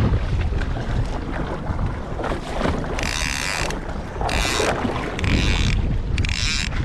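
Fishing reel's drag buzzing in four short runs about a second apart, starting about three seconds in: a hooked fish is pulling line off the reel. Steady wind rumble on the microphone underneath.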